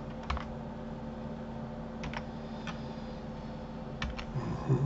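A few scattered keystrokes on a computer keyboard, some in quick pairs, as Blender shortcuts are pressed, over a low steady hum.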